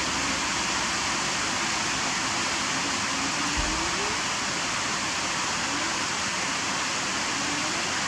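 Steady hiss of falling rain, with a faint low thump about three and a half seconds in.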